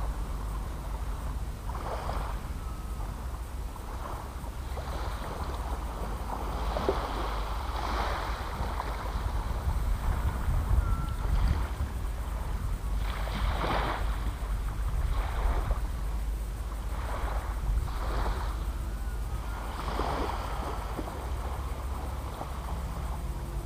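Wind rumbling steadily on the microphone at the water's edge, with small waves washing softly onto the sand every second or two.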